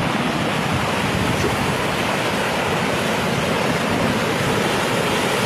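Muddy flash-flood water rushing down a gully: a steady, even rushing noise with no breaks.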